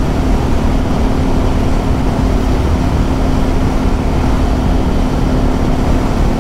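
Yamaha MT-03 660's single-cylinder engine running at a steady cruising speed, a constant hum under heavy wind rushing over the microphone from a strong headwind.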